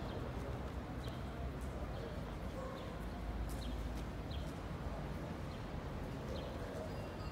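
Outdoor city street ambience: a steady low rumble with faint, evenly repeated light ticks, roughly one and a half a second.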